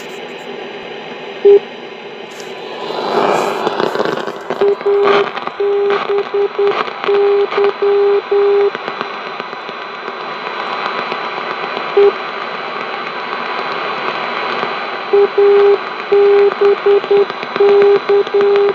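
Radio receiver hiss with a Morse code signal coming through: a single beeping tone keyed in short and long pulses, in two runs with a pause between. A burst of crackle comes about three seconds in.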